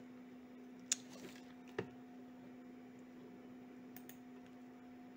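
Sharp computer mouse clicks: two about a second apart, then a fainter double click about four seconds in. A steady low electrical hum runs underneath.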